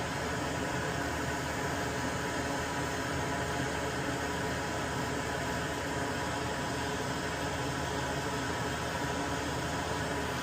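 Hot air rework station blowing steadily, an even fan hiss and hum, as heat is applied to desolder relays from a circuit board.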